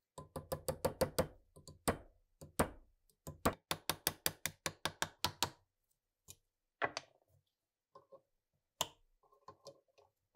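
Hammer tapping a steel pin punch to drive a pin out of a rusted RPG-7 trigger housing held in a vise. Two quick runs of sharp taps, several a second, with single harder strikes between them, then a few scattered taps.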